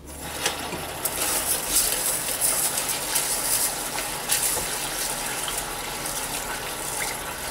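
Kitchen tap running into a metal pot of glutinous rice while a hand swirls the grains to wash them. The water comes on suddenly and then gushes steadily.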